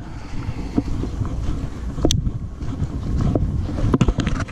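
Wind buffeting the microphone, an uneven low rumble, with a few sharp knocks from footsteps and handling as the wearer walks across the grass.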